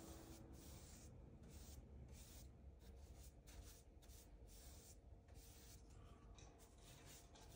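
Faint swishing of a paintbrush stroking paint onto a wooden cabinet door, in short, repeated strokes.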